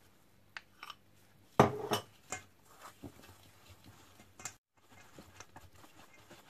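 A stirring utensil knocking and clinking against a stainless steel mixing bowl while dry flour is mixed. The knocks come irregularly, with the loudest clatter about one and a half seconds in and fainter ticks later on.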